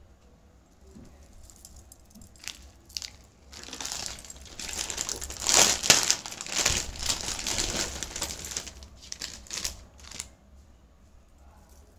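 Clear plastic bag crinkling and rustling as it is handled. It starts a few seconds in, is loudest around the middle and dies away near the end, with a couple of light clicks just before it.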